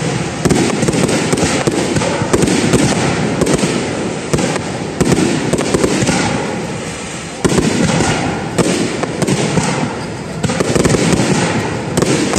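Aerial fireworks bursting in quick succession, with a dense crackling that swells again with each new volley and fades between them.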